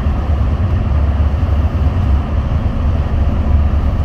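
Steady low road rumble of a vehicle driving at highway speed, heard from inside the cabin: tyre and engine noise with no change in pace.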